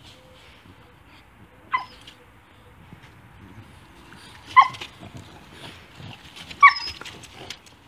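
A dog giving three short, high-pitched barks, spaced a couple of seconds apart, the last two the loudest.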